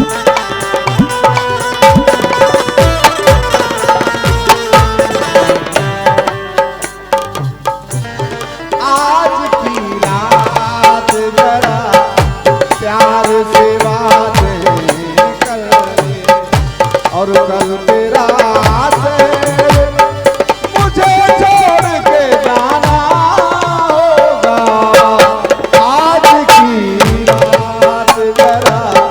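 Instrumental interlude of a Hindi folk song: a melodic instrument playing over hand-drum beats whose deep strokes bend down in pitch. The music thins briefly about a quarter of the way through, then picks back up.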